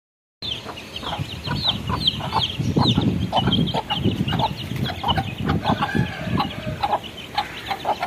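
Chicks peeping in a dense run of short, high, falling cheeps, with a hen's lower clucking mixed in; it starts about half a second in.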